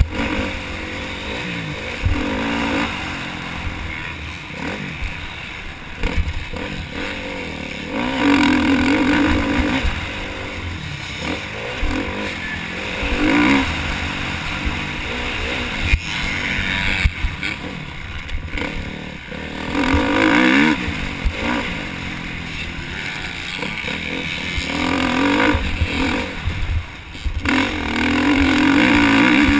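KTM motocross bike's engine revving hard and backing off again and again as it is raced, with wind rumbling on the helmet-camera microphone.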